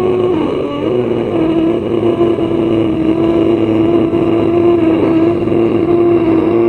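Ujjayi pranayama breath: air drawn in slowly through a deliberately constricted throat, making a loud, steady drone at one pitch.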